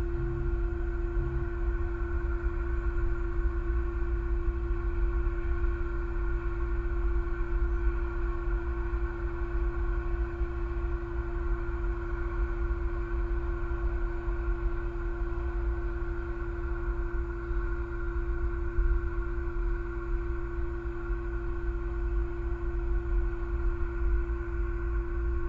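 Steady low rumble of wind on the nest camera's outdoor microphone, with a constant hum of several steady tones underneath. Nothing changes throughout.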